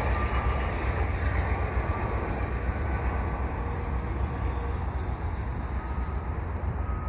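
Departing VIA Rail passenger train receding down the line: a steady rumble that fades slowly, with a faint thin squeal from the wheels now and then.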